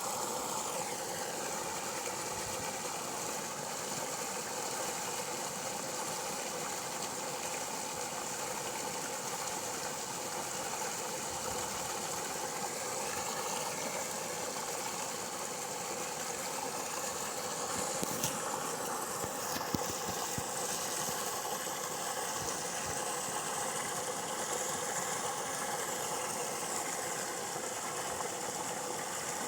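An engine running steadily at idle, with a couple of short knocks about two-thirds of the way through.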